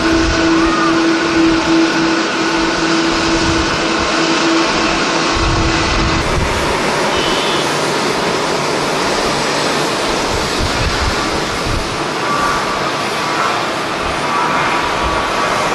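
Jet airliner engine noise, a loud steady rush, with a steady hum that stops about four seconds in. Gusty wind buffets the microphone with uneven low rumbles.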